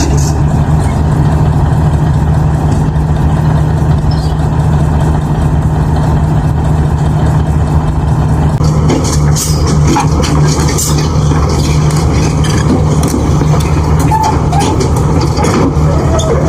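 Heavy vehicle engine running steadily with a deep, constant hum. Its tone shifts slightly about halfway through.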